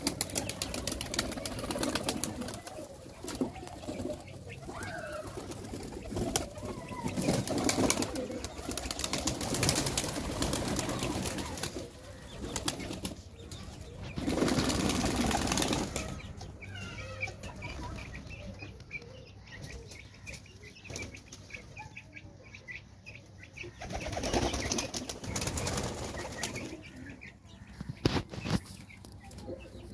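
Domestic pigeons flapping their wings, in repeated bouts of rapid fluttering wingbeats. The loudest bout comes about halfway through, and another comes near the end.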